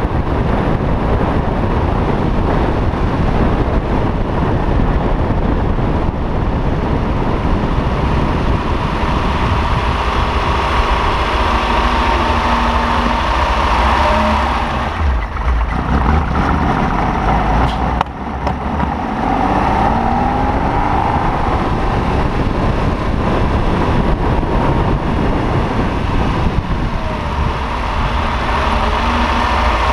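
Freshly rebuilt 3-litre Colombo V12 of a 1962 Ferrari 250 GT/E running under way, heard close up over the open engine bay. It eases off about halfway through, then picks up again with rising revs.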